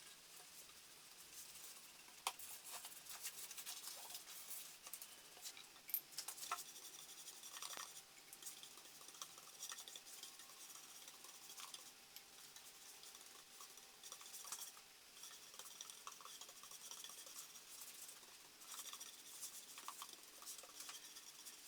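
Faint, soft scratchy rubbing on wood as shellac is worked onto the cash drawer, with a few light clicks and knocks.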